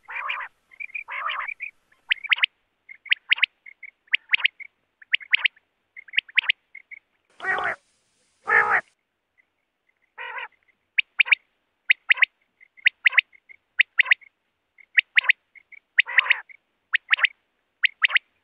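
Quails calling: a steady run of short, sharp, high calls repeated several times a second, with a few fuller, lower calls mixed in and two longer, louder calls about halfway through.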